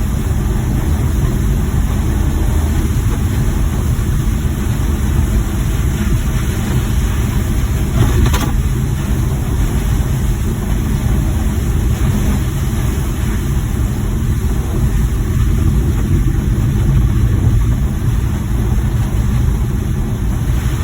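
Suzuki Multicab van driving, steady engine and road rumble heard from inside the cabin, with a single brief knock about eight seconds in.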